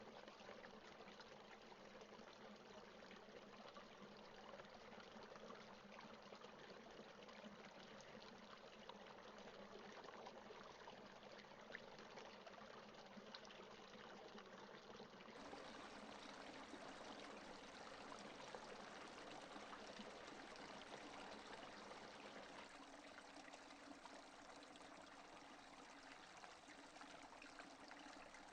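Faint, steady rain falling, a dense patter of drops with no thunder; the texture shifts slightly about halfway through.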